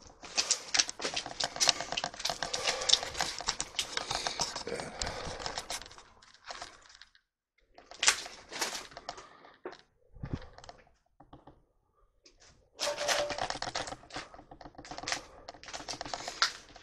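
Footsteps crunching over debris on a floor: rapid runs of crackling clicks in stretches of several seconds, with pauses between them. There is a single dull thud in the middle of the quiet stretch.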